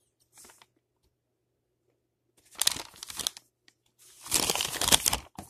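A long paper till receipt rustling and crinkling as it is handled, in two bursts, about two and a half and four and a half seconds in.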